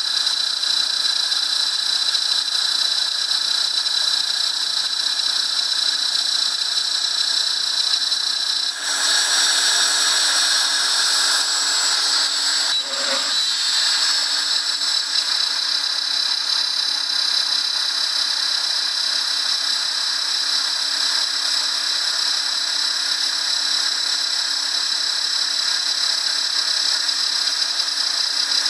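Router spindle of a small CNC gantry mill running at high speed while milling an aluminium workpiece: a steady high-pitched whine with hiss, turning louder and hissier for a few seconds about a third of the way in.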